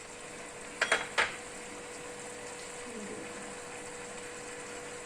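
Three quick metal clinks of cookware about a second in, over a steady hiss from the pot of rice cooking on the stove.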